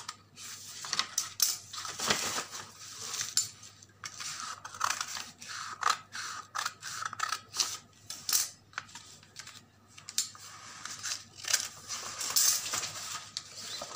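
Large tailoring scissors cutting through stiff chart paper: an irregular run of snips as the blades close along the pattern line.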